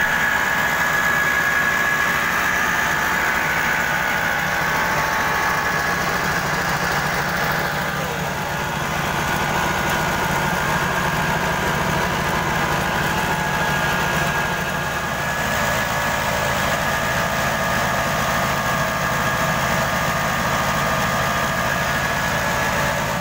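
Single-cylinder Jiang Dong diesel engine running steadily under load, driving a rice huller through V-belts, with the whir of the huller milling grain.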